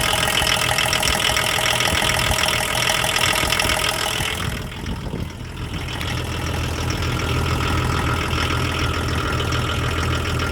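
Diesel engine running with a regular knock, which the owner suspects is a worn crankshaft bearing or rod knock. About halfway through, the knocking pattern gives way to a steadier, deeper running sound.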